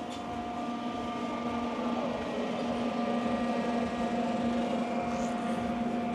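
Steady mechanical hum with a few held tones, growing a little louder over the first couple of seconds.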